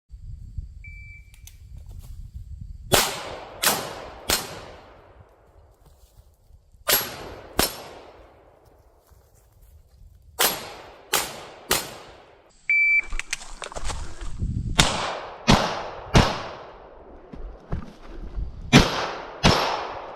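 A shot timer's short electronic beep, then pistol shots fired in quick strings of two and three with pauses between as the shooter moves to a new position. A second timer beep a little after the middle starts another string of shots.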